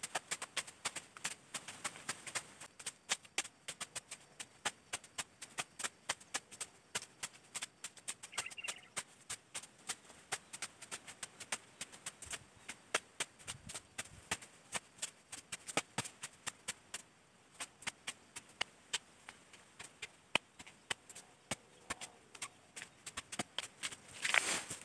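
Machetes hacking through ferns and undergrowth: sharp chopping strikes, irregular, a few a second, with a louder rustle of vegetation near the end.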